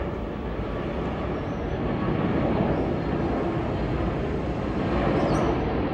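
Jet engines of a four-engine Boeing 747 freighter passing low overhead on approach with its landing gear down: a steady rumbling roar that builds in loudness.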